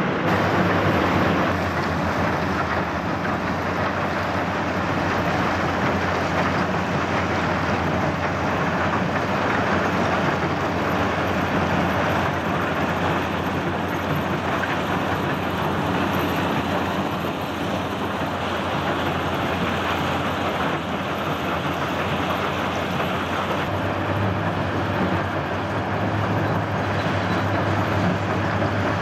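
A mobile stone crushing and screening plant running: a steady diesel drone with the rattle of broken stone through the conveyors and vibrating screen. The low hum grows somewhat louder near the end.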